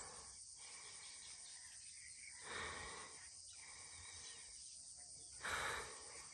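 Steady high-pitched insect chorus, with two brief louder rushes of noise about two and a half and five and a half seconds in.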